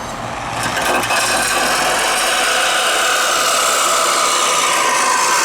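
Power saw blade cutting through car-body sheet metal: a steady, loud rasping run that builds up over the first second.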